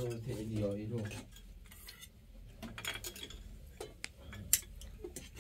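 Metal spoons clinking and scraping against a cooking pot, a metal tray and plates as food is served: a few separate clinks, the sharpest about four and a half seconds in.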